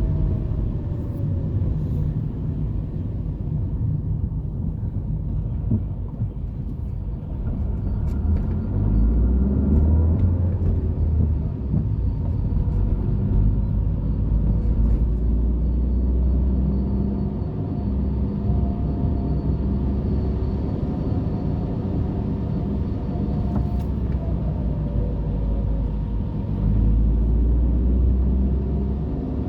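City street traffic: car engines rumbling past, swelling and easing as vehicles go by.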